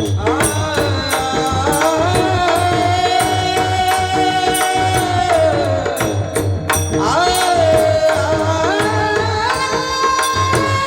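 Kirtan music: a voice holds long sung notes, the first sliding up into a long note and the second stepping higher near the end, over a steady harmonium drone. Small hand cymbals and a hand drum keep an even beat throughout.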